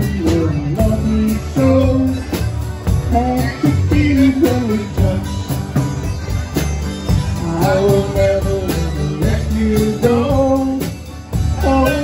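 Live instrumental break on button accordion, acoustic guitars and electric bass: a melody line over strummed chords and a steady bass.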